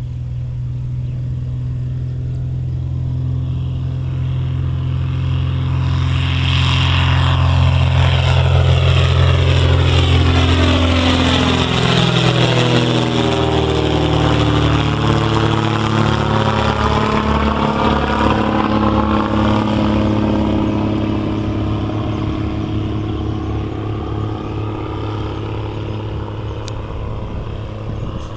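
Cessna O-1 Bird Dog's six-cylinder Continental O-470 engine and propeller at take-off power as the plane climbs out and flies overhead. It grows louder, drops in pitch as it passes about twelve seconds in, then fades away.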